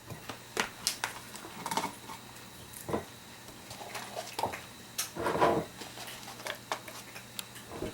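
Scattered light clicks, taps and rustles of cucumber chips and sliced vegetables being packed by hand into a pickle jar.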